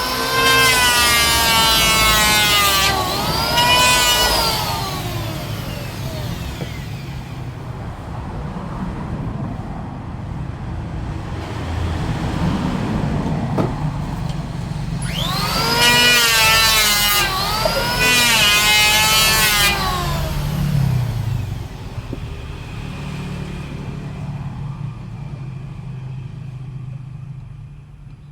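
Electric woodworking power tool cutting wood in passes, two near the start and two more past the middle, its high whine sagging and recovering in pitch with each cut, with a steady low hum in between.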